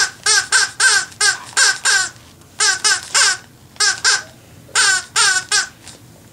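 A person's high, squeaky put-on voice making short, quick sing-song syllables in four runs with short pauses between them, with no clear words.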